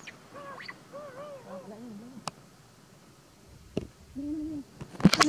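Baby macaque calling: a quick series of short, high coos, each rising and falling in pitch, then two lower, longer calls near the end. A few sharp clicks are also heard, the loudest near the end.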